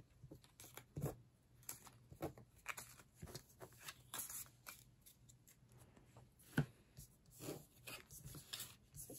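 Stiff game cards being slid off a playmat and stacked in the hands: soft, irregular rustles and taps, with one sharper tap about six and a half seconds in.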